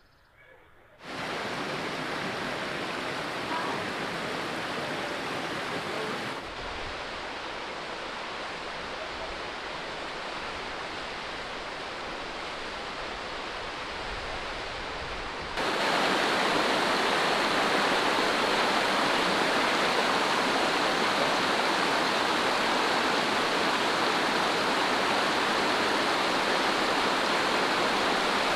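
Rushing water of Palisades Falls, an 80-foot waterfall: a steady, even rush that starts about a second in, dips a little, then jumps abruptly louder just past halfway.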